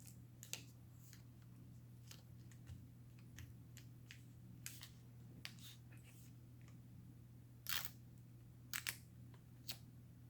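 Faint scattered clicks and short rustles of small parts being handled inside an opened MacBook during a battery replacement, over a steady low hum. The loudest is a short scrape about eight seconds in, followed by a quick double click and one more click.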